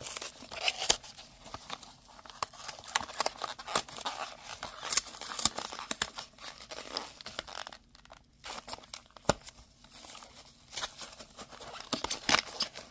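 Trading-card collection box packaging being torn open and handled, crinkling and crackling in irregular bursts with scattered sharp clicks and a brief lull about eight seconds in.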